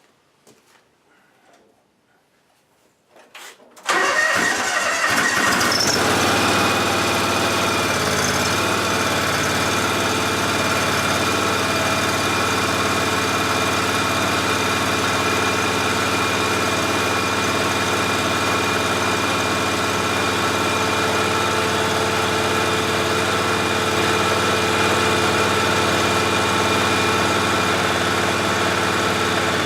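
John Deere X585 lawn tractor's Kawasaki V-twin engine comes on suddenly about four seconds in, after a few faint clicks, and then runs steadily with a constant whine. The engine has just had its oil changed.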